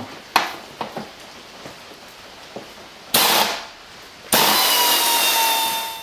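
A handheld power tool runs in two bursts, a short one and then a longer one of about a second and a half, with a faint whine inside the hiss. It is most likely spinning out the motorcycle's seat bolts. A few light clicks of handling come before it.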